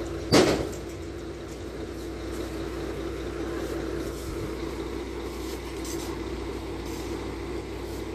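A crane truck's diesel engine running steadily with a constant hum while it drives the truck-mounted crane. A short, loud burst of noise stands out about half a second in.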